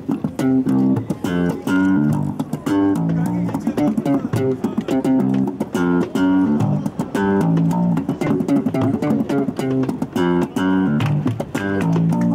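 Plucked-string music: a guitar picking notes over a plucked bass line in a steady, lively rhythm.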